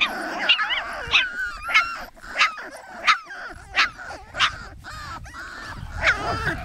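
A litter of 4½-week-old soft-coated wheaten terrier puppies yipping and whining, a string of short high-pitched calls about one or two a second, some overlapping from several pups at once.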